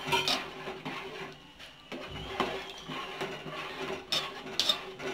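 A ladle stirring liquid adai payasam in a metal pot, scraping and clinking against the side of the pot now and then.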